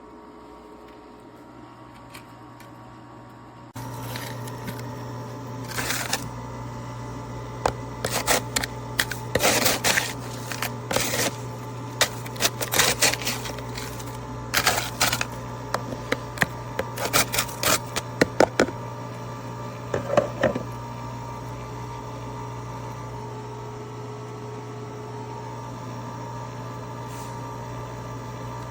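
Countertop nugget ice maker running with a steady hum that starts suddenly about four seconds in. From about six to twenty seconds in, a long run of sharp clicks and clatters, then the hum carries on alone.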